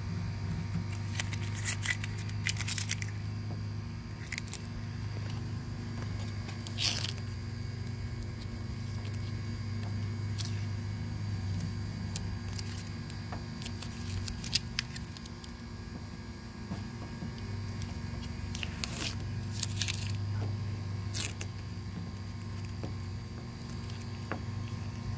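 Blue painter's masking tape being peeled off a car's emblem in a few short pulls, about two seconds in, around seven seconds and again near the twenty-second mark, over a steady low hum.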